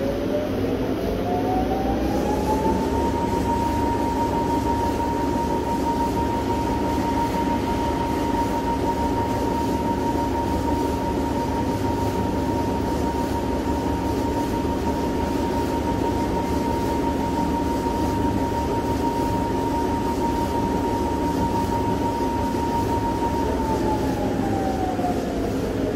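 Spindle drive of a You-Ji YV-1200 CNC vertical turning center running up to speed. Its whine rises in pitch over the first few seconds, holds steady, then falls as it slows down near the end, over a constant low machine hum.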